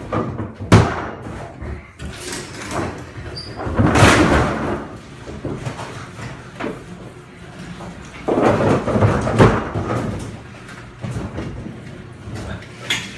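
Sectional garage door rattling and rumbling along its metal tracks as it is raised, in several loud bursts with quieter stretches between.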